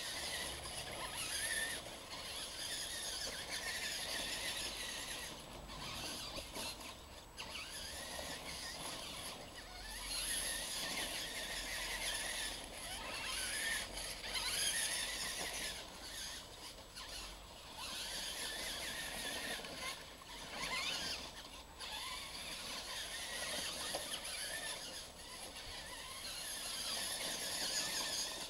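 Radio-controlled monster trucks' electric motors and gearboxes whining, the pitch rising and falling again and again as the throttle is worked.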